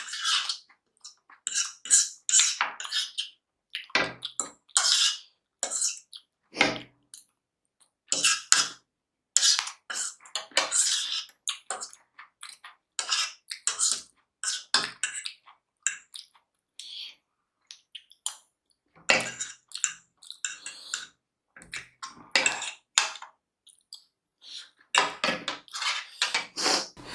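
Close-miked eating of a plate of paneer chowmein: many short chewing and mouth sounds in irregular clusters, with utensils clinking against the dish.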